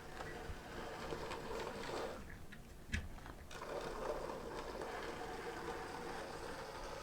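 N gauge Graham Farish 4F locomotive chassis running on track, its small electric motor and gears giving a faint whir. The sound drops away about two seconds in and comes back a second and a half later, with a single click near three seconds.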